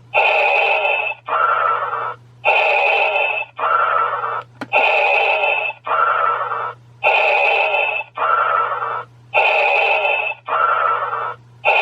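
Electronic Darth Vader breathing effect from a toy Darth Vader helmet: a hissing in-breath then a lower out-breath, repeating evenly about every two and a half seconds, about five breaths in all, over a steady low electronic hum.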